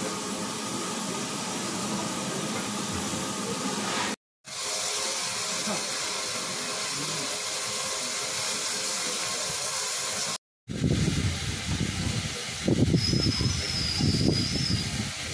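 Steady hiss of steam from a steam locomotive standing at the platform, broken by a brief silent cut. About ten seconds in it gives way to wind buffeting the microphone, with a faint, high, wavering whistle near the end.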